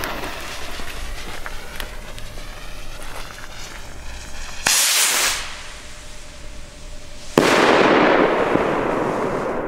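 Zink bouquet rocket launching with a hiss that fades as it climbs. A short loud burst comes about five seconds in, then near the end the rocket's break goes off loud and its crackle and echo die away slowly.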